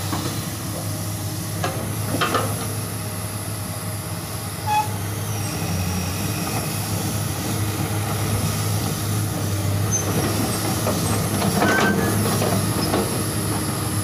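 Crawler excavator travelling on its steel tracks: the diesel engine runs steadily under squealing and clanking from the track links, with louder clanks about two seconds in and again near the end.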